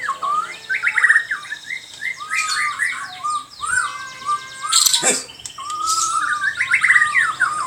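White-rumped shama (murai batu) singing a varied run of whistled phrases and quick trills, with a short break in the middle. A brief harsh burst sounds about five seconds in.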